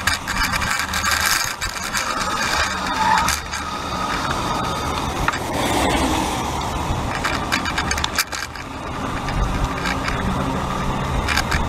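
Continuous clatter and rattle of a camera on a bicycle's pannier rack as the bike rides over wet pavement, with tyre hiss. About midway a car passes close by on the wet road.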